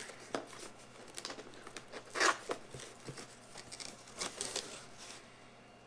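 A cardboard box being opened by hand: the flaps and tabs scrape and rustle as they are pulled free, in several short bursts, with the loudest rip about two seconds in.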